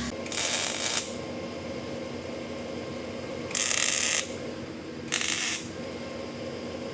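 Welder striking three short tack welds, each a burst of crackling hiss about half a second long, one near the start and two in the second half.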